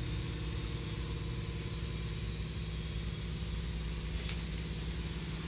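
Steady, unchanging low mechanical drone, like an engine idling or a machine running.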